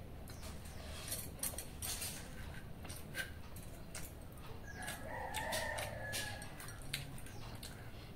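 A rooster crows once about five seconds in, one held call of about a second and a half. Scattered light clicks and taps sound around it.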